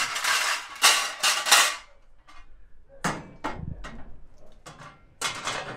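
Metal smoker tray being handled inside the steel cabinet of a Hark smoker. It scrapes and clatters in the first two seconds, then gives several sharp clanks and knocks against the cabinet from about three seconds in.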